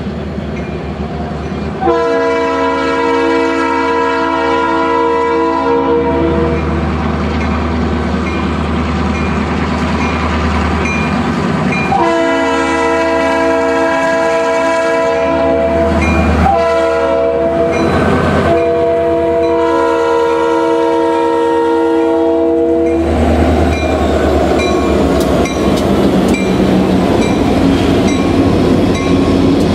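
Norfolk Southern diesel freight locomotive's air horn, several notes sounding together, blowing the grade-crossing signal of two long blasts, a short one and a final long one, over the low rumble of the engines. After the horn stops, the steady rumble and clatter of double-stack container cars rolling past.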